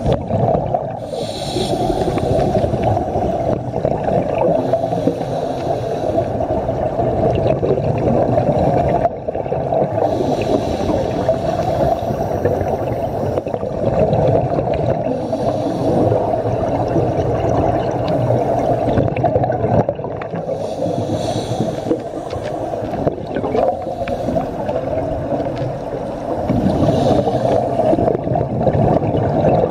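Underwater sound of a scuba dive heard through a camera housing: a steady muffled water rumble, with the bubbling rush of a diver's regulator exhalation about every ten seconds.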